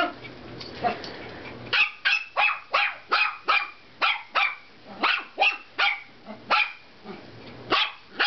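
Five-month-old Chihuahua–Dachshund–Yorkie–Shih Tzu mix puppy play-barking at a cat: a rapid run of short, high-pitched yaps, two or three a second, starting about two seconds in.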